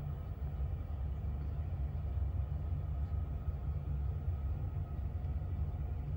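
A steady low rumble with no distinct knocks or clicks.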